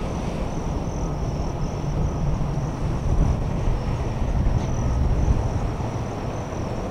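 Boeing 777 jet engines rumbling steadily, with a thin high whine above the rumble.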